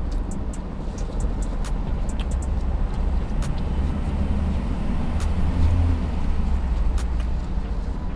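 Low, steady rumble of an SUV idling, heard from inside the cab, swelling briefly about halfway through, with scattered sharp clicks over it.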